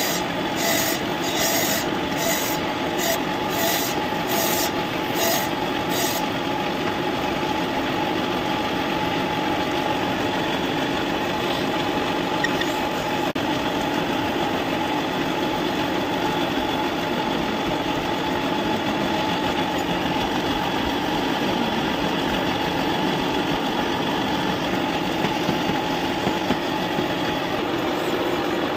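Wood lathe running steadily while a hand gouge cuts a small spinning wooden piece, the cutting hissing in strokes about twice a second for the first six seconds. The lathe then runs on steadily.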